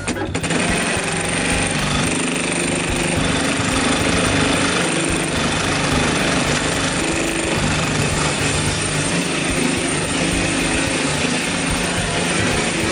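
DEMATRON DM-2210 programmable pattern sewing machine running steadily as its needle stitches heavy webbing held in the clamp.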